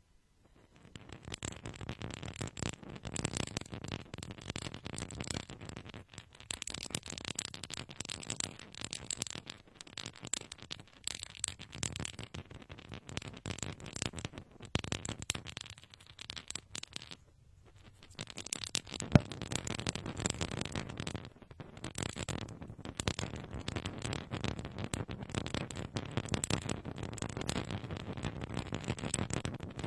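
Nail file rasping in quick, continuous scraping strokes against a binaural microphone, with a short pause about seventeen seconds in.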